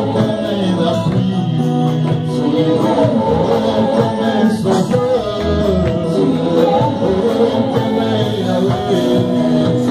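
Live gospel worship music from a small church band with electric bass, keyboard and drums, with voices singing along.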